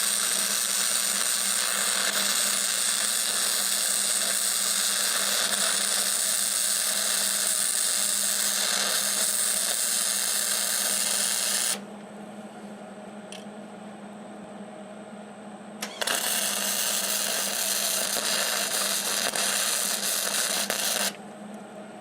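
MIG welder arc crackling and hissing steadily as a weld bead is run over a leak in a steel tractor wheel rim. The arc stops about halfway through, leaving a steady low hum, then strikes again for a second pass of about five seconds.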